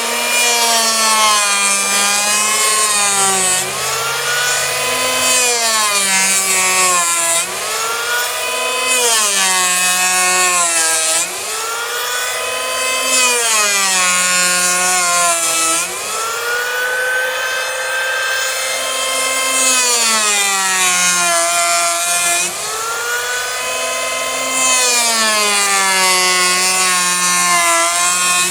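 Handheld electric power planer running and cutting across a hickory slab at about a 1/32-inch depth. Its high whine sags in pitch as the cutterhead bites into the wood and rises again between strokes, over and over.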